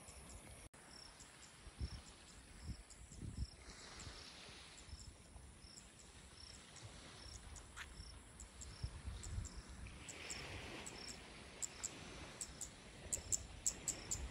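Faint insect chirping: a short high chirp repeating about twice a second, with quicker high ticks joining near the end, over a low rumbling noise.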